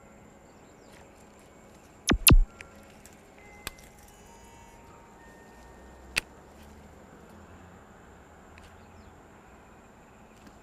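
Two loud sharp knocks in quick succession about two seconds in, then a couple of fainter clicks, over a quiet outdoor background with a faint steady high tone.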